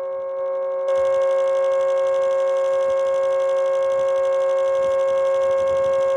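Homemade mini Super Sirex model siren with a 7/10-port rotor running at steady full speed, sounding a held two-tone chord at constant pitch. It is slightly quieter and duller for about the first second.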